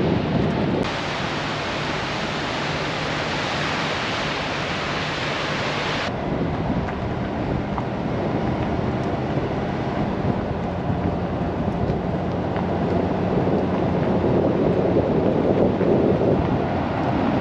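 Steady, loud roar of water pouring out through an opened dam floodgate. Its character changes abruptly about a second in and again about six seconds in.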